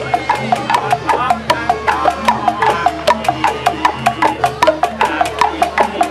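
Music with a steady beat of sharp, wood-block-like knocks, about four a second, over a pitched melody.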